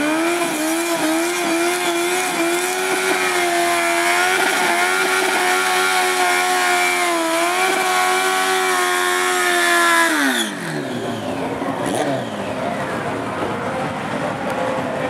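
Honda CBR1100XX Blackbird drag bike's inline-four engine held at high revs during a burnout, the rear tyre spinning. About ten seconds in, the revs drop off sharply and the engine settles to a lower, quieter running note.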